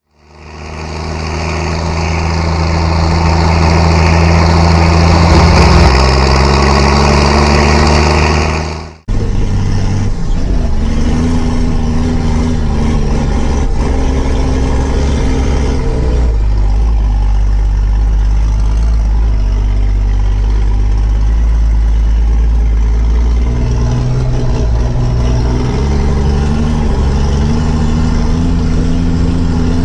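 Tractor diesel engine working hard under load while ploughing. Its note shifts a little as the revs vary, and there is an abrupt cut to another take about nine seconds in.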